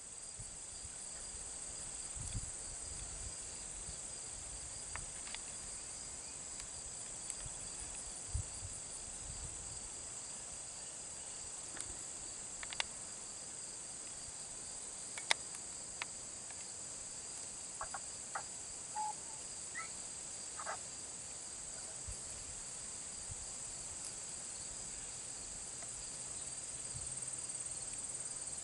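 A steady, high-pitched chorus of insects such as crickets, droning without a break. A few short faint clicks and chirps come through it now and then.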